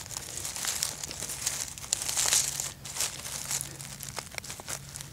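Dry pine needles and leaf litter rustling and crackling as a hand brushes through them, a string of short scratchy rustles that is loudest about two seconds in.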